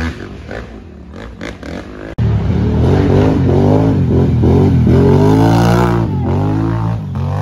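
Racing quad (ATV) engine on a dirt trail. It is faint and choppy at first, then suddenly much louder about two seconds in, revving hard with the pitch rising and falling as the throttle is worked.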